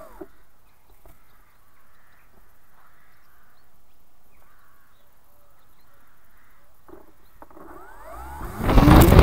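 Crows cawing now and then in the background, faint. Near the end a loud rushing sound swells in.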